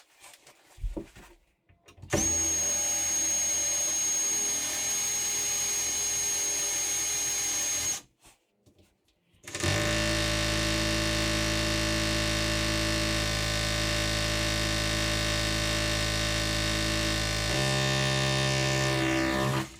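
Power drill boring mounting holes into the wall in two long, steady runs with a short pause between; the second run shifts to a lower, heavier pitch shortly before it stops.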